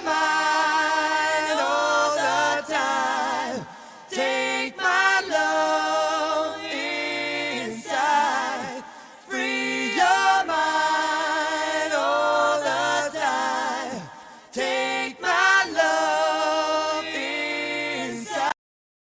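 Background music: a group of unaccompanied voices singing in harmony, with long held notes over a low bass part. It cuts off suddenly near the end.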